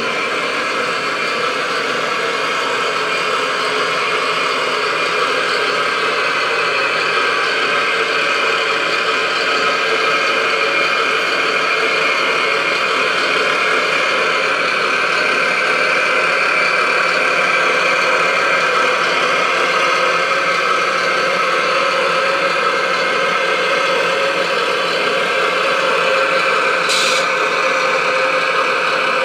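Radio-controlled truck running steadily, a constant mechanical drone made of many level tones. A single short click comes near the end.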